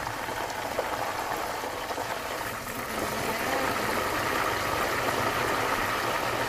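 A whole chicken deep-frying in a pot of hot oil: a steady sizzle and bubbling, which grows louder about three seconds in.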